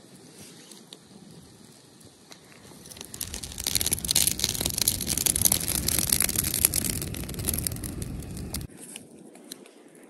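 Campfire of logs and dry twigs burning, crackling and popping. It becomes loud about three seconds in, a dense run of crackles over a rush of flame, and cuts off abruptly near the end.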